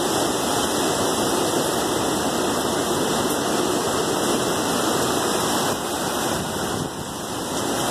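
Hurricane-force wind and driving rain, a loud steady rush that dips briefly about seven seconds in.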